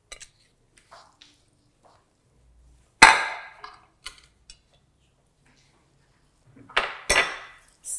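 Sharp knocks of kitchenware on a worktop: one loud knock about three seconds in, then two more close together near the end, with faint small clicks between.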